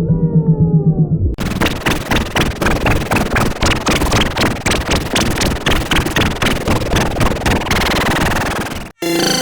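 Effects-processed cartoon logo-intro audio. It opens with a few falling pitch glides, then turns into a dense run of rapid clicks and crackles with no clear tune for about seven seconds. This cuts off abruptly near the end, and a new, more tonal section starts.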